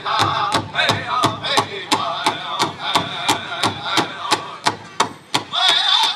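Powwow drum group singing a women's fancy shawl song: a large hand drum struck in a steady beat, about three strikes a second, under the singers' high voices.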